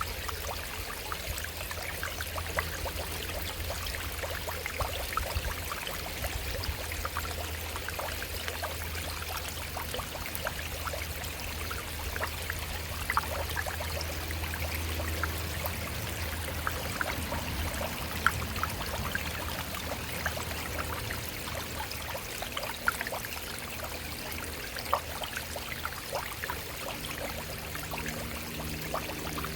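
Shallow stream running over rocks: a steady babble of water with many small splashes and plinks.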